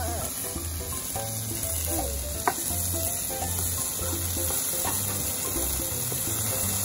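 Sliced okra sizzling as it stir-fries in a pan, with a steady hiss and a sharp tap of the spatula about two and a half seconds in.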